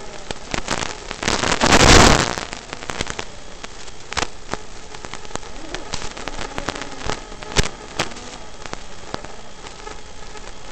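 Crackling static and hiss from the analog FPV video receiver's audio channel, full of sharp clicks, with a loud surge of hiss about two seconds in; the noise follows the breakup of the drone's analog video signal.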